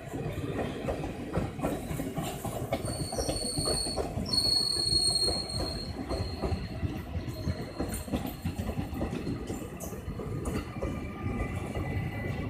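Indian Railways passenger train coaches passing close at speed: a steady rumble with wheels clattering rapidly over the rails. A thin, high-pitched squeal comes in about three seconds in and fades out a few seconds later.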